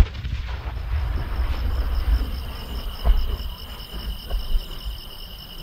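A large No. 10 firework shell fired from its mortar with a sharp boom at the start, followed by a low rumble as it climbs trailing its rising tail, with another thud about three seconds in. Crickets chirp steadily in the background.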